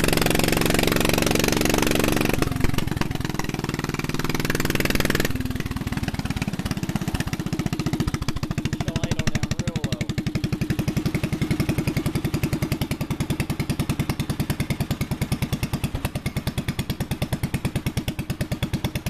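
A 1952 Wisconsin AHHD air-cooled single-cylinder engine drives a Devilbiss air compressor, with steady, rapid, evenly spaced exhaust beats. A loud hiss over the running stops suddenly about five seconds in.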